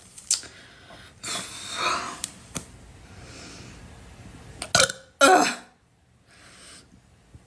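A young woman burping, with a short, loud burp about five seconds in after a softer, noisy sound about a second and a half in. The burps come from drinking a lot of carbonated drinks quickly.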